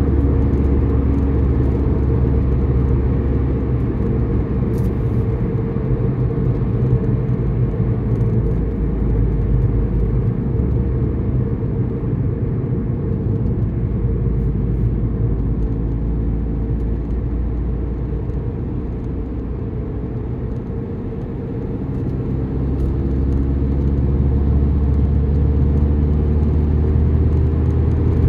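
Car driving, its engine and road noise making a steady low drone. The drone eases off about two-thirds of the way through, then builds again with a slowly rising pitch near the end.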